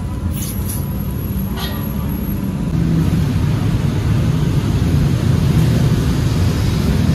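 A few sharp metal clicks as a gas regulator is fitted onto the brass valve of an LPG cylinder. About three seconds in, a steady low rumble takes over.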